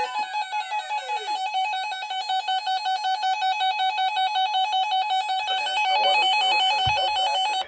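Several weather alert radios sounding their alarms at once, set off by the NOAA Weather Radio weekly test: an electronic warbling beep pulsing about five times a second, with falling chirps in the first second or so. It cuts off abruptly at the end.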